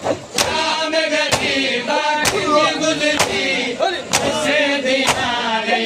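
Men chanting a mourning lament together, with the whole group striking their bare chests in unison (matam). The chest slaps land in a steady beat about once a second, six of them.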